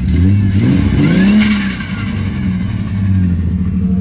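Ford BA XR6 Turbo's turbocharged inline-six running, blipped up in revs about a second in and falling back to a steady idle. The owner says the engine is hurt, with cylinder four down to about 60 compression where it should be around 200.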